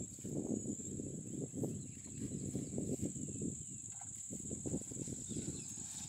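Insects buzzing in a steady, high-pitched drone over an uneven low rumble.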